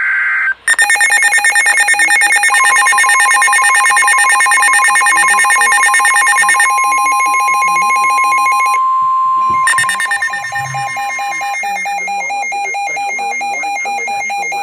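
Several NOAA weather radios sounding their alerts at once: fast, pulsing electronic beeps at several pitches, joined about two seconds in by the steady 1050 Hz warning tone, which stops about nine seconds in, after which the beeping changes pattern. It opens with the end of a SAME data burst, the warbling digital header that switches the radios into alarm for a Special Marine Warning.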